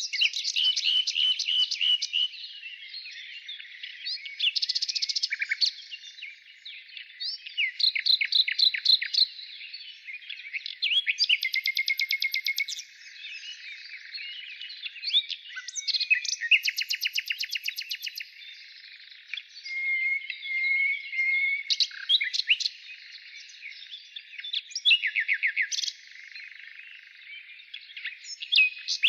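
Several birds singing and calling at once: fast chattering trills and short whistles that come in bursts of a second or two, overlapping one another.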